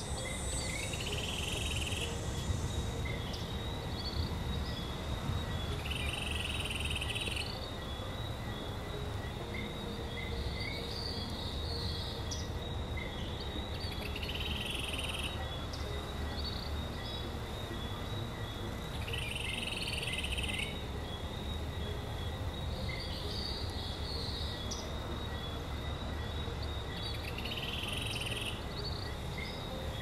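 Rainforest ambience: a waterfall's steady rush under a continuous high insect drone, with a short call repeating about every five seconds.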